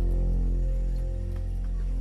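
Background music holding a low, steady drone of layered tones.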